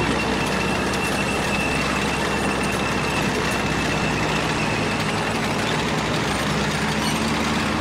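A column of heavy military vehicles on the move, engines running steadily, with a thin high whine through the first few seconds.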